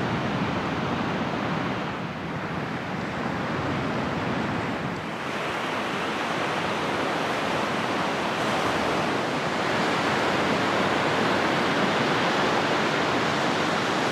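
Surf breaking and washing on a sandy beach: a steady rush of waves that swells and eases slightly.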